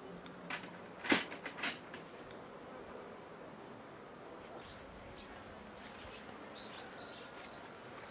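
A few sharp clicks or knocks just over a second in, over a low steady buzz that fades out after about two seconds. Faint short high chirps, like small birds, come later.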